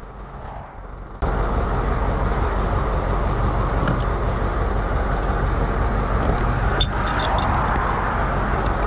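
Flatbed tow truck's engine running steadily, starting about a second in, with a few knocks and clatters of wood blocks and straps being handled on the metal deck.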